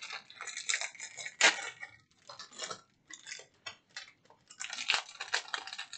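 Foil wrapper of a Magic: The Gathering booster pack crinkling and crackling as it is torn open by hand, in quick irregular clusters with the loudest crackle about a second and a half in.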